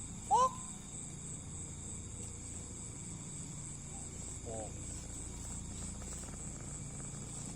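Steady high-pitched insect chirring over a low hum, with a short, loud pitched sound about half a second in and a fainter wavering one a little past the middle.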